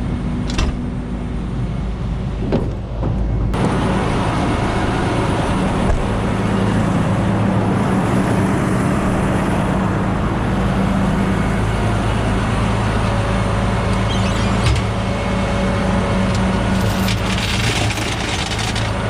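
Diesel engine running steadily at idle, a constant low hum.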